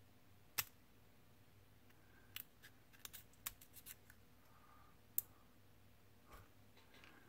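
Hobby knife trimming small plastic parts off their sprue: sharp clicks and snaps as the thin sprue gates are cut through. One loud snap comes about half a second in, a quick run of small clicks around three to four seconds, and another loud snap about five seconds in.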